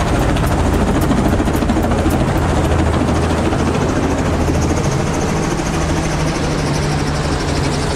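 Light two-blade helicopter running close by on the helipad, its engine and turning rotor giving a steady, loud noise; a faint high whine joins in about five seconds in.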